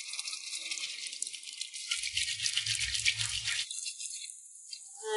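Water running from a tap and splashing, with many small spattering ticks. It cuts off abruptly about two thirds of the way through.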